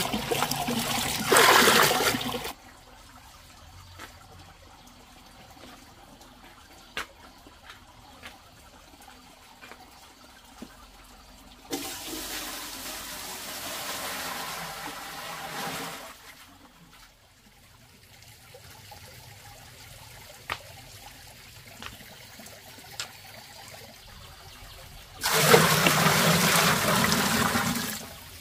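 Water running or being poured in three spells of a few seconds each: one at the start, one around the middle and one near the end. Between them it is quieter, with a few small knocks.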